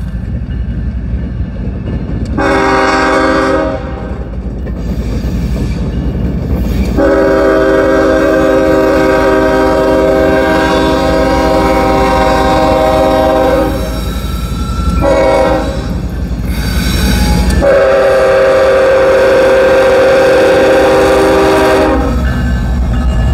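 Union Pacific freight locomotive's air horn sounding a several-note chord in the grade-crossing pattern: long, long, short, long, the last blast held about four seconds. Diesel engine rumble underneath grows louder, and the locomotives pass close with their wheels on the rail near the end.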